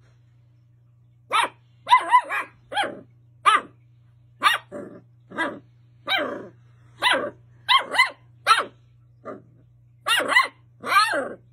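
Dachshund puppy barking in a play bow: a run of short, high, sharp barks, one or two a second, starting about a second in.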